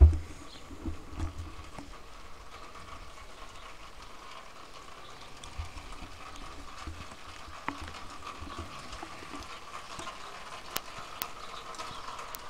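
Footsteps walking over floor protection: dull low thumps in two spells, near the start and again around the middle, over a faint steady hum.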